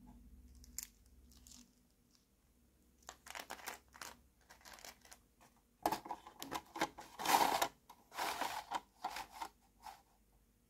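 Small plastic toy-house parts being handled and fitted together: a run of light clicks, taps and scrapes starting about three seconds in, busiest and loudest in the second half.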